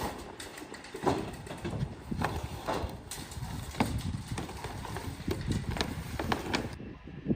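Irregular knocks and clatter, several sharp hits a second at uneven spacing, with no speech.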